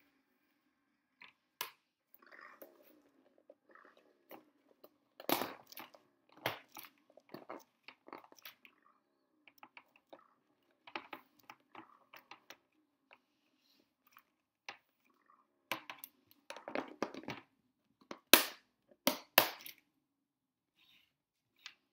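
Fluffy fibrous insulation being pressed and stuffed into a plastic food box, making irregular crunching and crinkling handling noises. Near the end come a few sharp clicks as the box's lid is pressed on and its clip latches are snapped shut.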